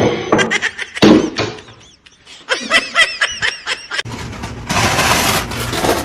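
A person laughing in a quick run of short bursts about halfway through, after a few sharp knocks; a steady noisy hiss takes over near the end.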